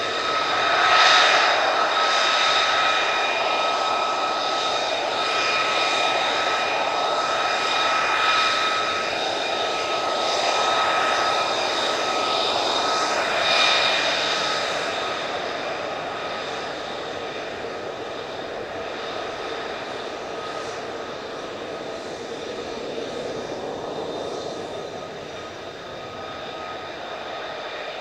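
F-35A Lightning II's Pratt & Whitney F135 turbofan at taxi power: a steady high whine over a rushing hiss. It swells about a second in, again near 8 s and near 13 s, then fades as the jet moves away.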